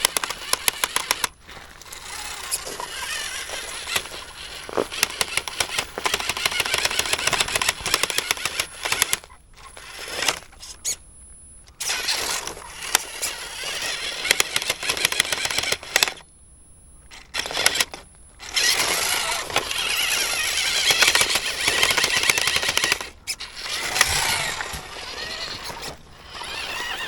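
Small radio-controlled jeep's electric motor and gears running with a rattly, clattering mechanical noise as it drives over rough ground. It stops dead several times and starts again.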